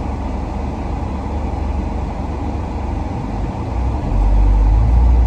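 Car cabin noise: a steady low rumble of engine and road that gets louder about four seconds in.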